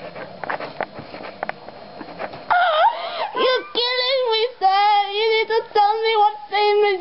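Scattered clicks and rustling, then about two and a half seconds in a high-pitched voice starts singing a run of held, steady notes with short breaks between them.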